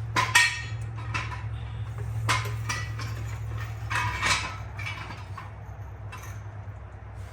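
Metal objects being handled, clinking and clanking in a handful of sharp, ringing strikes, the loudest about a third of a second in and around four seconds, over a steady low hum.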